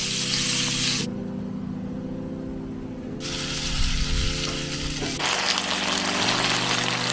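Meat and vegetables sizzling in a frying pan as they are stir-fried with tongs. The sizzle is strong at first, drops out after about a second, and comes back stronger in the second half. Held chords of background music run underneath.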